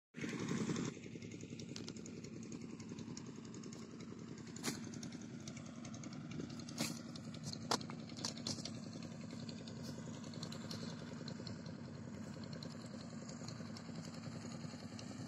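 A small engine running steadily at idle, with a few sharp clicks in the middle.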